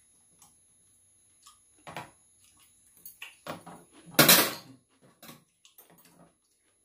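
Spoons and chopsticks clinking and scraping against bowls and a metal serving tray during a meal, in scattered short clicks, with a louder half-second clatter about four seconds in.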